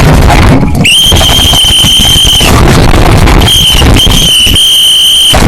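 A loud, steady high-pitched squeal or whistle tone that holds for about a second and a half, then comes back in several shorter stretches. Under it is a loud, distorted rumbling noise.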